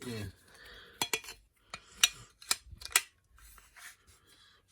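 Metal parts of a Kirby G4 vacuum clinking and tapping together as they are handled and fitted: a string of about six sharp clicks, the loudest about two and three seconds in.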